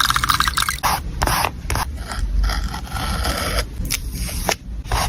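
Paper and stationery being handled while making a journal collage: a series of short scrapes and rubs, with a quick scratchy rattle at the start.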